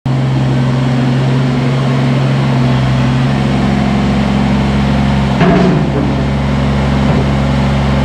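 Kubota BX compact tractor's three-cylinder diesel engine running steadily as the tractor drives in, with a brief louder noise about five and a half seconds in.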